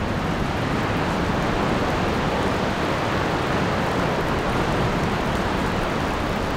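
Steady rushing noise of a windy coastal rainstorm, even throughout, with no break.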